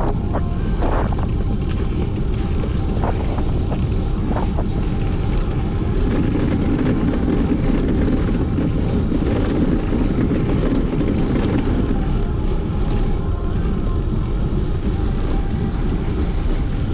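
Wind buffeting the action camera's microphone while riding a bicycle: a steady low rumble with a few faint clicks. A low drone swells from about six seconds in and fades again about six seconds later.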